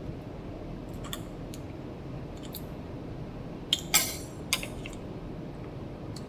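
A few sharp clicks and scrapes of small metal repair tools against an iPhone, loudest in a cluster about four seconds in, over a steady low hum, as the glued-in old battery is worked loose.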